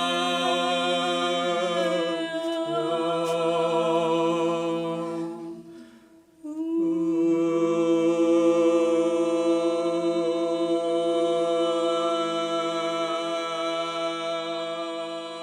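Several voices singing long, held notes together in harmony, unaccompanied, as sound-healing toning. The notes change about two seconds in, fall away briefly around six seconds in, then resume and hold steadily.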